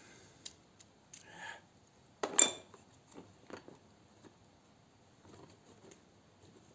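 Small steel taps and hand tools from a tap-and-die set being handled, with scattered light clicks and clinks. One sharp metallic clink about two and a half seconds in rings briefly.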